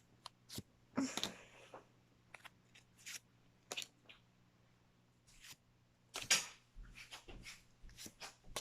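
Handling of a Pokémon booster pack and its cards: a scatter of short crinkles, rustles and clicks, with the loudest longer crinkle about six seconds in.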